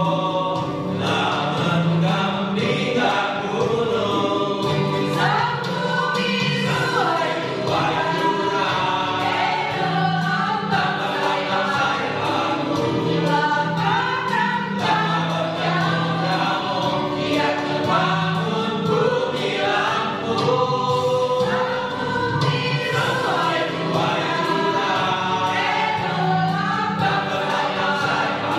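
A small choir of men and women singing a song together, accompanied by an electronic keyboard with a steady bass line.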